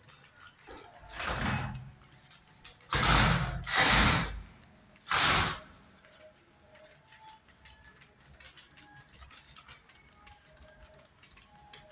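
Four short, harsh scraping bursts, each about half a second long; the second and third come close together.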